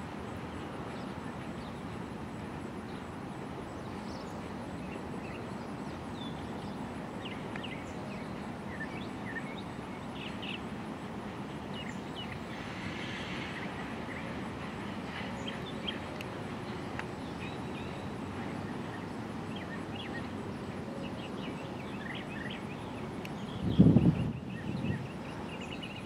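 Freight train of tank cars and covered hoppers rolling away with a steady rumble, with birds chirping over it. A brief loud bump comes near the end.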